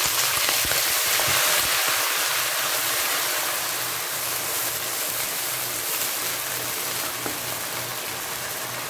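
Hot oil with browned onions and ginger-garlic paste in a non-stick wok sizzling and spattering hard after a splash of water is added. It slowly dies down as a slotted spoon stirs through it.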